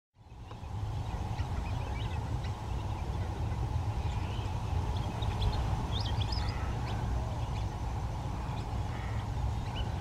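A steady low rumble with short, high bird calls scattered over it, busiest about six seconds in.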